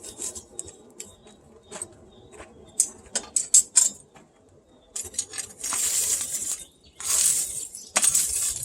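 Metalwork on a steel knife blade: a run of light metallic clinks and taps, the loudest about three seconds in, then three longer harsh scraping strokes, each about a second long.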